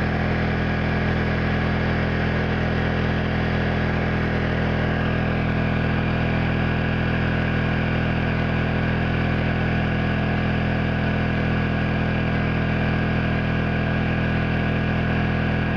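Honda EU2000i inverter generator's engine running steadily under a heavy load of a space heater and a hair dryer drawing around 2,000 watts, its pitch and level holding even with no sign of overload.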